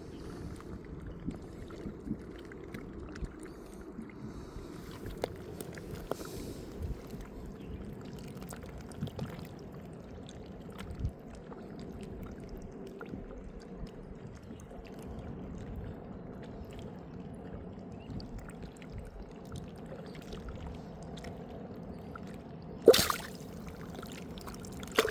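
Water sloshing and lapping around a small boat, with scattered small knocks. A sudden loud noise comes near the end.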